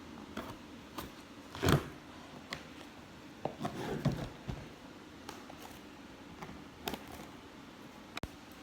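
Handling noises from unpacking snacks: scattered light clicks and scrapes, with a loud knock about two seconds in and a short stretch of scraping and rustling around four seconds.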